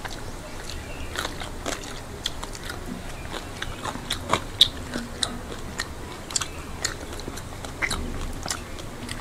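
Close-up eating sounds of people eating khichuri by hand: wet chewing with irregular sharp lip smacks and mouth clicks, several a second, and fingers working rice on steel plates.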